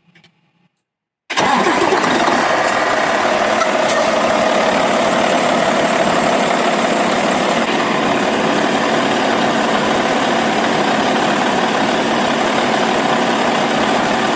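Freightliner truck's diesel engine, jump-started with a portable booster, comes in abruptly about a second in and then runs steadily at idle.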